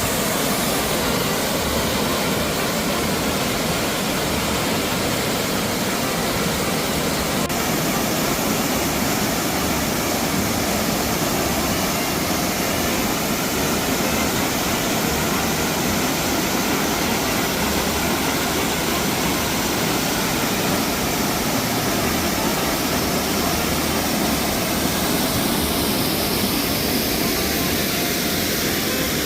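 Waterfall carrying a heavy flow, a steady, even rush of falling water.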